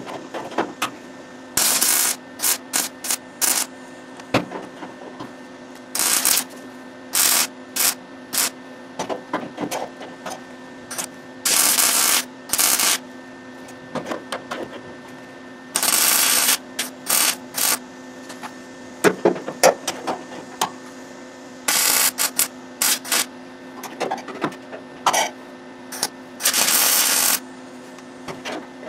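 MIG welder laying a string of short tack and plug welds, each a crackling sputter lasting from a fraction of a second to about a second, with brief pauses between, over a steady hum. The welds close up the old spot welds to rejoin the quarter panel to the wheel house.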